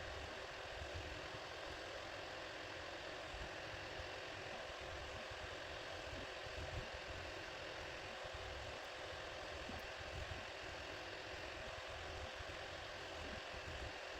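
A steady mechanical hum with an uneven low rumble underneath.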